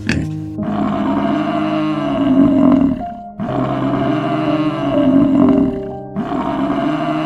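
African buffalo bellowing: three long calls, each about two and a half seconds, one after another, over background music with held notes.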